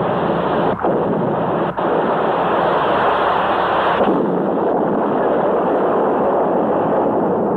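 Underwater torpedo explosion sound effect: a loud, continuous blast noise that runs on, with two brief dropouts in the first two seconds and a duller tone from about four seconds in.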